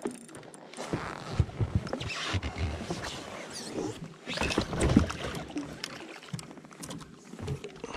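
Water splashing and sloshing beside a jet ski as a hooked fish is reeled up to the surface, with scattered knocks from handling the rod and reel.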